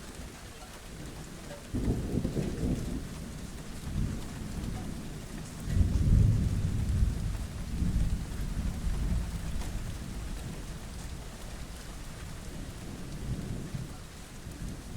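Steady rain with low rolling rumbles of thunder: one starts suddenly about two seconds in, and the loudest swells about six seconds in and dies away over a few seconds.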